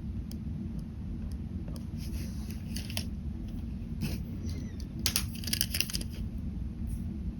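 Ballpoint pen scratching on paper in short sketching strokes, with a quick flurry of strokes about five seconds in, over a steady low background rumble.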